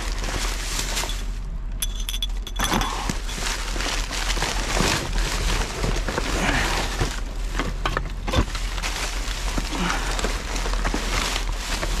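Black plastic garbage bags rustling and crinkling as gloved hands rummage through them in a dumpster, with occasional sharp knocks and clinks of rubbish shifting.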